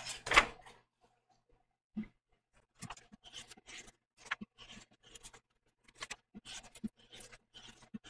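Printed paper template sheets rustling and sliding on a cutting mat as they are picked up and laid down, in short irregular bursts.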